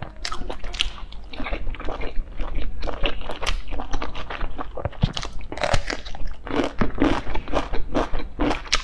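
Close-miked chewing of soft steamed dumplings: wet mouth sounds in a steady rhythm of about two chews a second.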